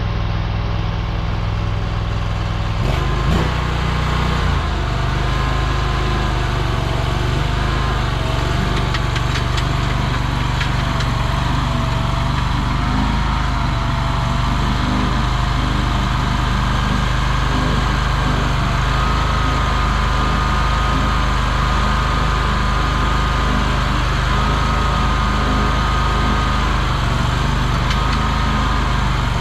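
Small gas engine of a mini skid steer running steadily, with a higher whining tone that wavers up and down. The engine note shifts about three seconds in.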